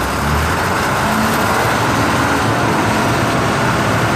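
Water jetting from a hose nozzle: a loud, steady hissing rush that comes on suddenly, with a faint low hum beneath.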